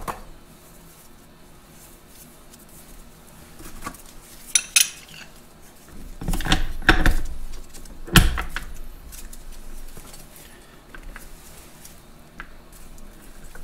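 Steel gears of a Farmall MD differential clinking and knocking against each other and the differential case as the spider and pinion gears are pulled apart, greased and refitted by hand. There are a few sharp metallic clinks about four and a half seconds in, a cluster around six to seven seconds, and the loudest knock about eight seconds in, with lighter handling noise between.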